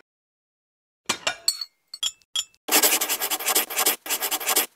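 A few separate glassy clinks with a short ringing tone, then a fast, dense run of high clicking or rattling that breaks off briefly once and stops abruptly.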